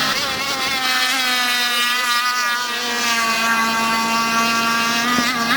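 Radio-controlled racing boat's motor running at high revs: a steady, high-pitched whine. Its pitch wavers in the first second and shifts briefly near the end.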